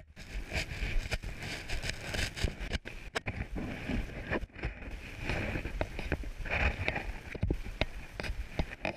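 Irregular footsteps and knocks with rustling from a body-worn action camera as its wearer walks over rocky, leaf-strewn ground.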